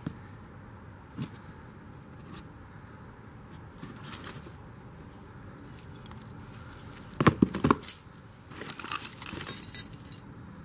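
Rusty metal parts clinking and rattling as hands rummage through a cardboard box of old parts. A few light clicks come first, then a burst of sharp knocks about seven seconds in, followed by a jangling clatter.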